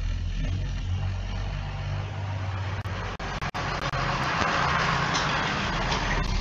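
A motor vehicle engine running steadily with a low rumble. A rushing hiss builds from about four seconds in and cuts off just before the end.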